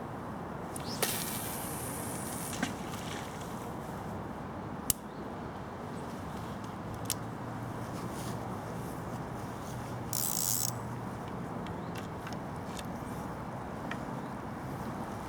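Fishing tackle being handled: a few sharp clicks and two short hissing rustles, the second about ten seconds in, over a steady outdoor background hiss.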